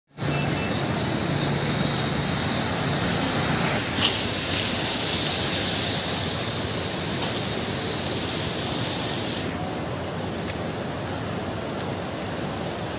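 Steady rushing noise of traffic on a street covered in shallow floodwater, with a brief sharp knock about four seconds in.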